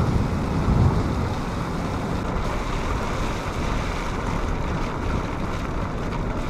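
Steady rush of wind buffeting the microphone over a low rumble from a slowly moving vehicle, with a stronger low gust about a second in.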